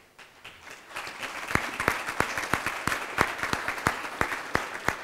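Audience applauding, building up about a second in, with one nearby person's claps standing out sharply at about three a second.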